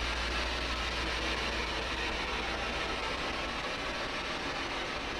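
Spirit box sweeping through radio frequencies, giving a steady hiss of static with no clear voice breaking through, over a low steady hum.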